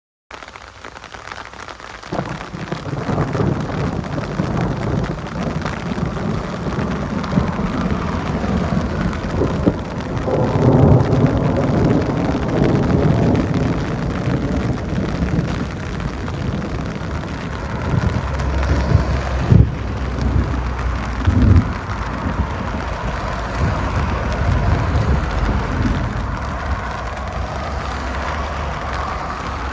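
Thunderstorm: steady rain with thunder rumbling several times, swelling loudest about ten seconds in and again a little before twenty seconds. Two short sharp claps come near the twenty-second mark.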